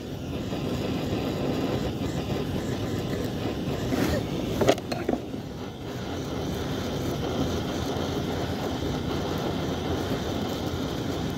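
Gas torch burning steadily while it heats a stuck fitting on a trailer's brake chamber, with a few knocks about four to five seconds in.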